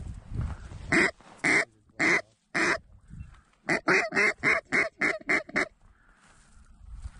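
Hand-blown duck call sounded close by: four loud, drawn-out quacks about half a second apart, then a quick run of about eight shorter quacks at roughly four a second that stops a little before the end.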